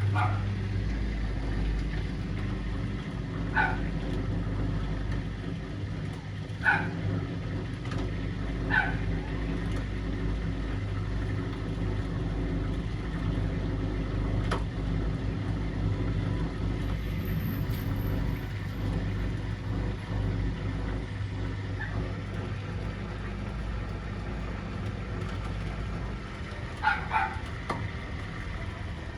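Vestel washing machine running with a steady low hum, a 6-litre water bottle in its drum. A dog gives a few short yips several seconds apart.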